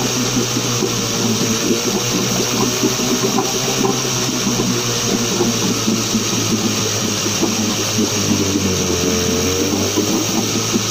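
1977 Suzuki DT9.9 two-cylinder two-stroke outboard motor running steadily with its cowling off, its pitch wavering slightly, with water churning in the test tank.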